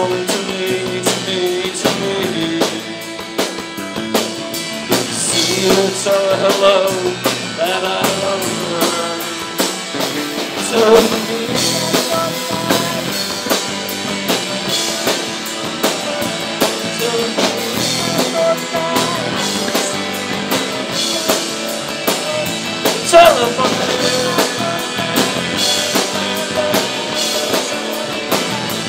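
Live rock band playing a song: drum kit, electric guitar, acoustic guitar and electric bass, with singing.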